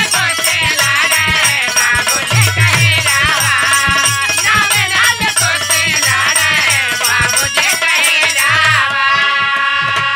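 Bhojpuri birha folk song music between sung lines: a wavering melody over drum beats and a fast, even jingling rhythm. Near the end the jingling stops and held notes sustain.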